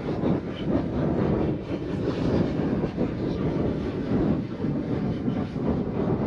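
Plastic fishing kayak hull being dragged across beach sand on a rope: a continuous grainy scraping rumble, with wind buffeting the microphone.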